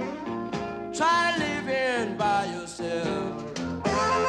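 Background music: a song with singing over guitar accompaniment, with sustained instrument tones coming in near the end.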